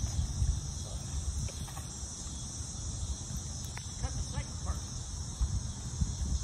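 Insects chirring steadily in a high, even chorus, over a low, uneven rumble.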